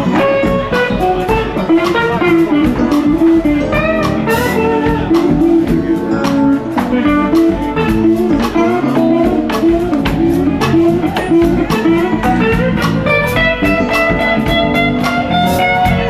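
Live blues band: a semi-hollow electric guitar plays lead lines with bent notes over drums and cymbals.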